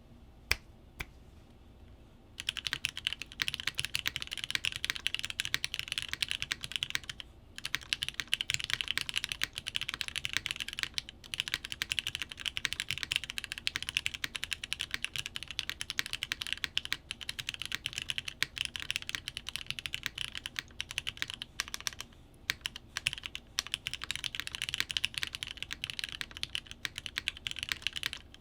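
Typing on a custom mechanical keyboard with lubed Cherry MX Black linear switches in an o-ring-mounted aluminum plate and GMK keycaps. Two lone keystrokes in the first second, then steady fast typing from about two seconds in, broken by a few brief pauses.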